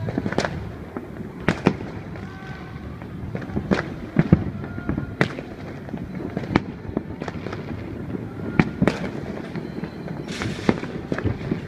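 Aerial fireworks bursting: an uneven series of about ten sharp bangs, with a longer crackling burst about ten and a half seconds in.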